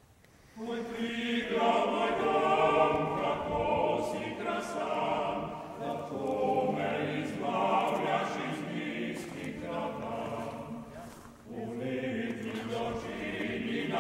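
Choir singing a slow song in several-part harmony. It comes in about half a second in, with short breaks between phrases about six and eleven seconds in.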